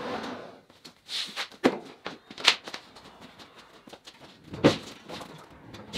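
About four sharp knocks and clunks with quiet between them, from woodworking machinery being shifted: a panel saw's sliding table pushed aside and a 14-inch bandsaw on a wheeled base being moved out.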